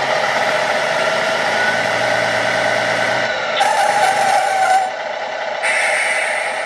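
Electronic truck sound unit in an RC Tamiya King Hauler, playing a simulated diesel truck engine through a small speaker. The engine runs steadily, grows louder for about a second just past the middle, and a brighter, hissier sound comes in near the end.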